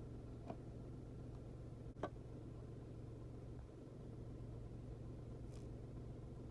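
Quiet steady low hum of background noise, with a light click about half a second in and a sharper, louder click about two seconds in.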